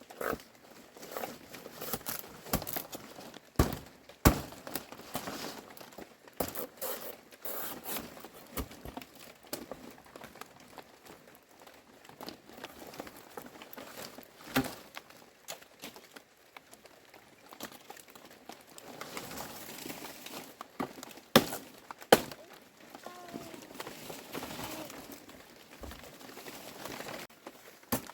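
Rustling and crinkling from materials being handled, with scattered light knocks and clatters and two loud, sharp knocks in quick succession about two-thirds of the way in.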